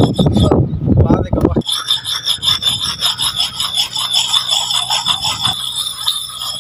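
Steel axe blade rubbed back and forth against a river stone to sharpen it: a rhythmic scraping rasp with a high metallic ring. A loud low rushing noise covers the first second and a half, before the scraping comes through clearly.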